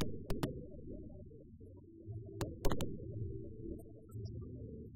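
Fireworks going off: sharp cracks of shells bursting, two close together about a third of a second in and three more around two and a half seconds, over a continuous low rumble of further bursts.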